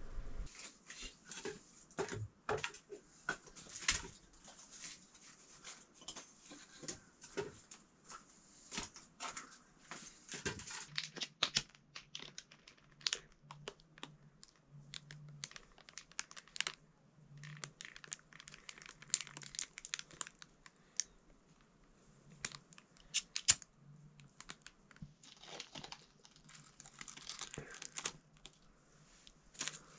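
Irregular small clicks and taps with bursts of crinkling rustle, from things being handled, with one sharper click about three-quarters of the way through.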